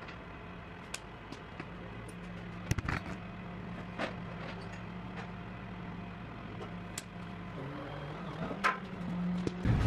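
Workshop room tone: a steady low electrical hum, with a few sharp metallic clicks and taps from hand tools being handled on the truck's panels.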